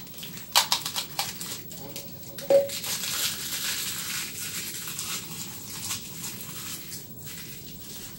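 A sticky label crackling as it is peeled off a clear plastic bowl, with clicks of plastic being handled. A short ring comes as the bowl is set down about two and a half seconds in, then a few seconds of paper and plastic crinkling that fades out.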